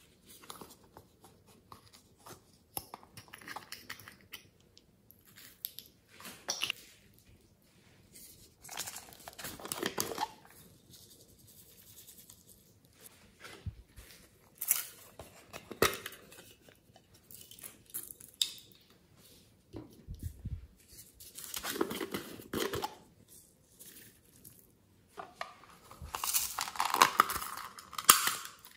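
Hands handling small plastic toys and their packaging: separate bouts of crinkling, clicking and tearing, with the longest and loudest bout near the end.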